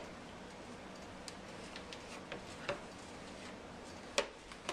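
A few scattered clicks and knocks from a plastic toy rocking horse as a small child climbs on and rocks it, the loudest knock about four seconds in, over quiet room tone.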